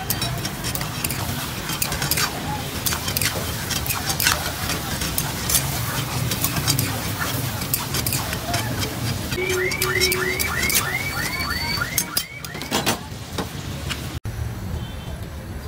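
Chicken frying in a steel karahi wok over a gas burner, with a metal spatula clanking and scraping against the pan as the pieces are stirred and turned. About ten seconds in, a quick run of high chirps sounds for a second or two.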